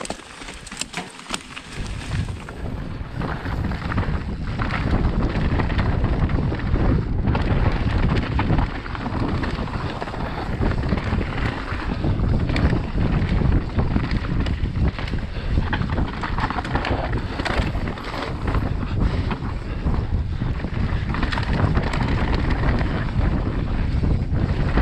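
Wind buffeting an action camera's microphone during a fast mountain-bike descent on a dirt trail, with a steady low roar and the clatter and knocks of the bike over bumps. The first couple of seconds are quieter, then the rush builds.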